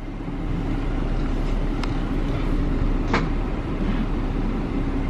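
Jeep engine idling with a steady low hum, and a single sharp click about three seconds in.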